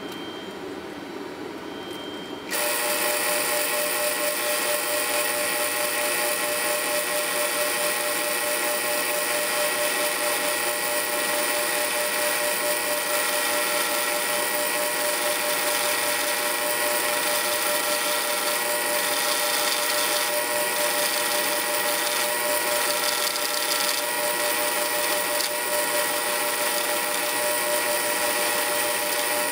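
South Bend Model A lathe running while a turning tool cuts down a large hex nut held in the chuck. It is a steady machine hum with several steady tones, and it gets suddenly louder about two and a half seconds in.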